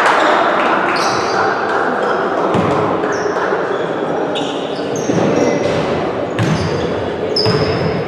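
Ball game in an echoing indoor sports hall: a ball bouncing and thudding on the court, with short high-pitched squeaks, over a steady murmur of spectators.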